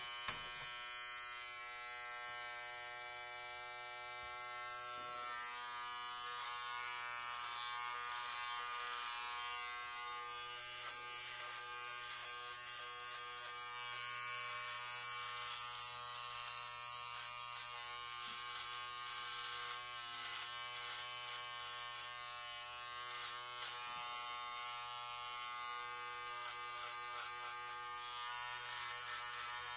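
Electric hair clippers running with a steady buzz as they cut hair.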